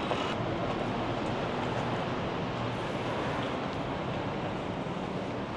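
Steady city street background noise, a low, even rumble of traffic.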